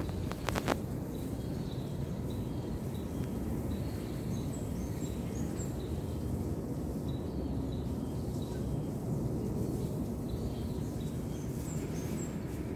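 Steady low outdoor background rumble with small birds chirping, short high calls scattered through the whole stretch. A few sharp clicks just after the start.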